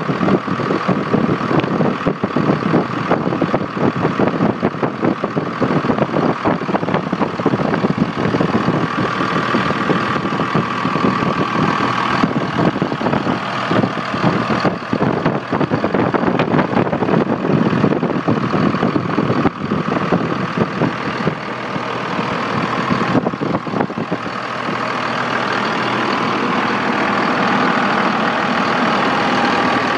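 2001 Dodge Ram's 5.9-litre 24-valve Cummins turbo-diesel inline-six idling close up under the open hood, with a steady diesel clatter; it sounds healthy and runs well. About two-thirds of the way through the sound turns a little smoother and louder.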